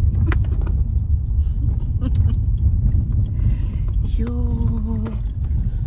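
Steady low rumble of a car heard from inside the cabin, driving over a rough dirt road, with a few light knocks. About four seconds in, a single flat held tone lasts just under a second.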